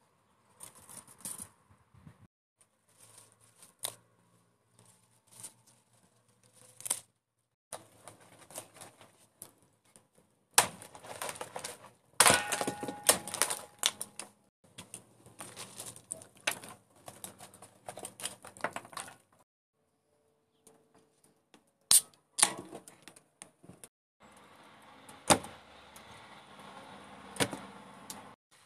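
A run of sharp knocks and cracks with rustling and handling noise between them, in short stretches cut apart by brief silences. The loudest cracks fit kindling being split on a wooden chopping block.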